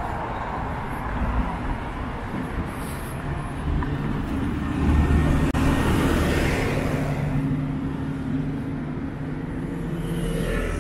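Road traffic: a motor vehicle passes close by, its engine and tyre noise swelling to a peak about halfway through and then fading, over steady traffic noise.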